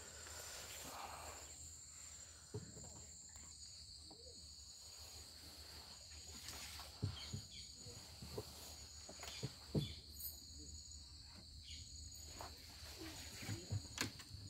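Insects calling in a mangrove forest, faint: a steady high-pitched drone with a second, higher chirp pulsing on and off about once a second, and a few soft knocks scattered through.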